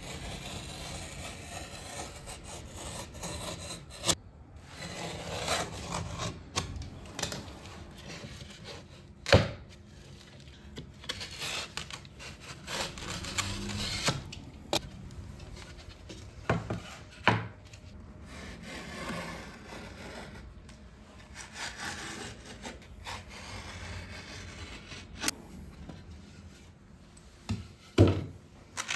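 Utility knife scoring the paper face of plasterboard in long rasping strokes, broken by several sharp knocks and cracks as the board is handled and snapped along the score line.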